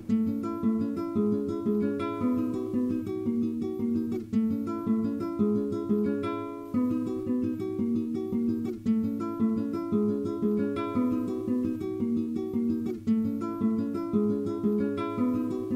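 Instrumental music on a plucked-string instrument, guitar or ukulele-like, picking a quick, even run of short notes.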